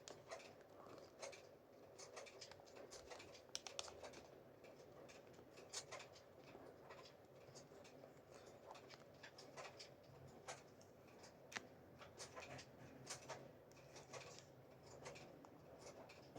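Faint, irregular clicks and light scraping from handling an unboxed toy robot and its packaging.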